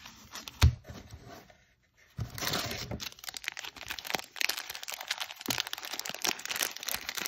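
Foil Ikoria booster pack wrappers crinkling and crackling as a handful of packs is handled and shuffled, after a single thump about half a second in and a short pause.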